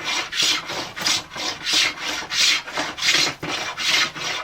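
Block plane taking quick repeated strokes along a wooden staff, about two rasping cuts a second, shaving down the corners of the eight-sided staff to round it.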